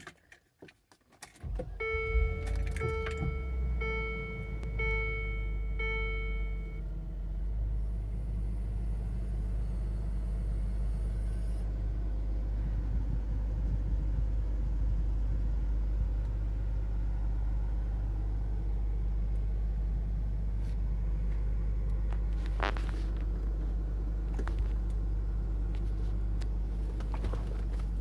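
2002 Land Rover Discovery engine cold-started: a few clicks of the key, then the engine catches about a second and a half in and settles into a steady idle. A dashboard warning chime beeps about five times, once a second, in the first seconds of running, and a single click sounds near the end.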